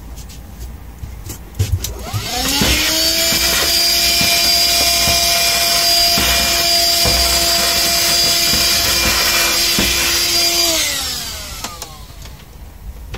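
Handheld vacuum cleaner switched on about two seconds in, its motor whine rising to a steady pitch, then switched off near the end, the whine falling away.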